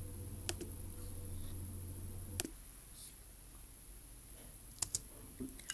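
Quiet room tone with a steady low hum that stops with a click about halfway through. Near the end, two quick clicks of a computer mouse.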